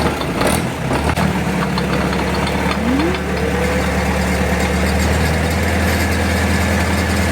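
Log splitter's small gasoline engine running just after starting, settling into a steady idle about a second in.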